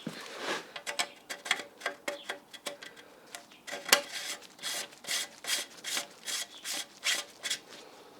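Repeated short rubbing strokes by hand, roughly three a second, at a moderate level.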